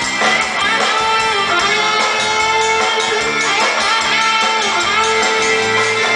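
Live band music, loud and steady, with guitar prominent.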